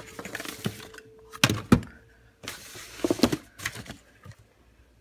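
Hands rummaging through a cluttered cabinet: rustling and shuffling of containers and packages, with several sharp knocks of things bumping together, the loudest about a second and a half in.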